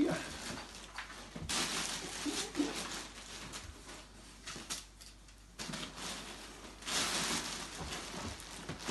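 Plastic bag rustling and crinkling in several bursts as hands rummage inside it and pull out clothing.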